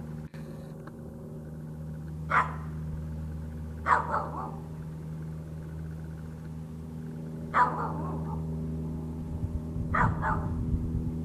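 A dog barking, four short separate barks spread a few seconds apart, over a steady low hum.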